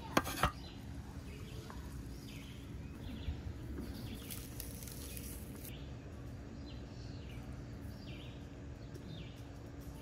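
Songbirds chirping outdoors in short repeated calls. Two sharp knocks of a cleaver on a wooden cutting board come right at the start, and a brief hiss follows about four seconds in.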